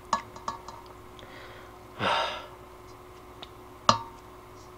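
Eating instant ramen from a stainless steel pot: utensils clink against the pot twice right at the start and once, sharply, near the end, and about two seconds in comes a short, loud slurp of noodles.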